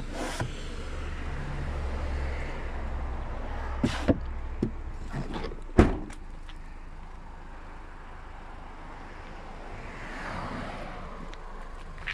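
A Honda Civic hatchback's tailgate being closed: a few light clicks and knocks, then one loud thud as it shuts, just before six seconds in.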